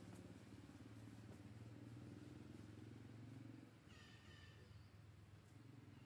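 A newborn macaque gives one short, thin, high-pitched squeak about four seconds in, over a faint steady low hum.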